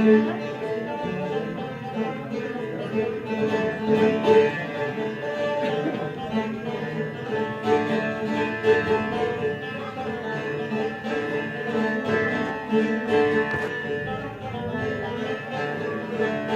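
Bağlama (long-necked Turkish lute) playing an instrumental semah melody as a steady run of plucked notes.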